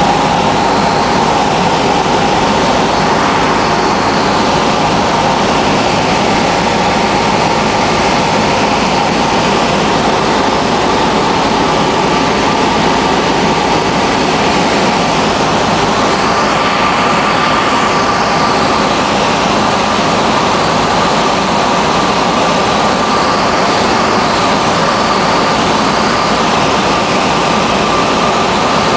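Steady engine and propeller drone of a small high-wing light aircraft in flight, heard inside the cabin. A tone within the drone shifts higher a little past halfway.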